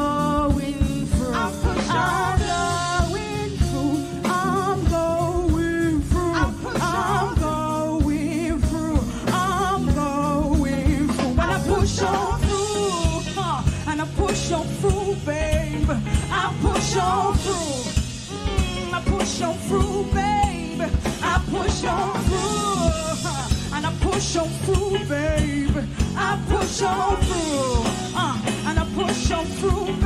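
Live band music with a steady beat, bass guitar and a sung vocal line that bends and glides without clear words.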